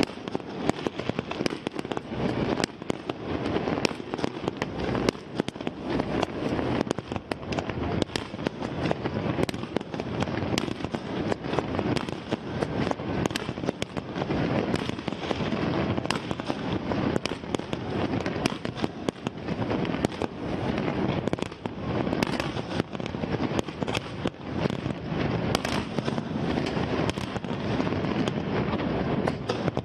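Fireworks display: aerial shells bursting in a dense, unbroken string of bangs and crackles, several a second, with no pause.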